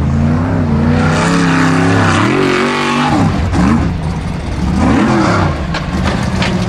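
Formula Offroad buggy's engine running hard at full throttle up a steep dirt climb. About halfway through, its pitch swings rapidly up and down as the buggy loses grip and flips over backward.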